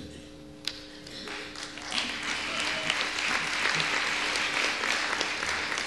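Audience applauding, building up about a second and a half in and carrying on steadily.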